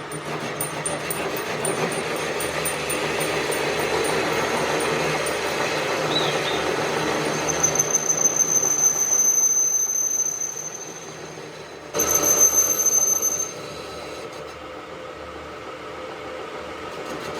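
Metal being machined on a workshop lathe: a steady grinding run with a thin, high-pitched squeal from the cutting tool. The squeal swells about eight seconds in and fades, then comes back louder and suddenly about twelve seconds in for a second and a half.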